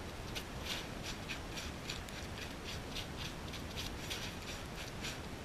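Boots scraping and sliding over thin snow on pavement during shuffle-dance steps: a short scrape about every third of a second, over a steady hiss.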